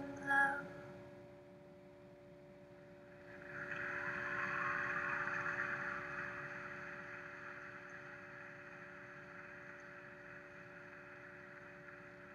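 Arena crowd applauding the end of a figure skating program: the clapping starts about three and a half seconds in, is loudest a second or two later and slowly fades. A steady hum with a few fixed tones runs underneath.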